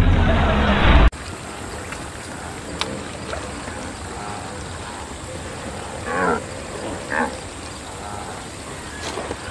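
A bass-heavy music sting cuts off suddenly about a second in, giving way to a steady hiss of ambience. Around six and seven seconds in come two short grunting calls.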